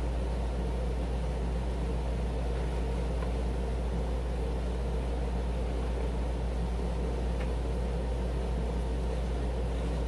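Steady low hum with a constant hiss, with a couple of faint small clicks.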